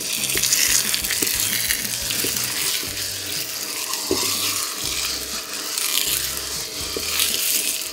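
Guanciale rind (cotenna) sizzling in a hot pan with a steady hiss as it is pressed down to render out its fat.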